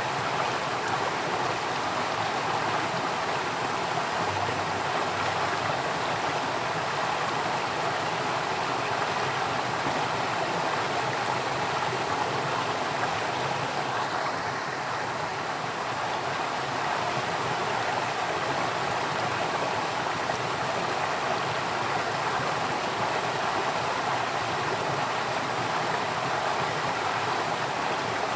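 Water flowing steadily, an even rushing with no breaks or changes.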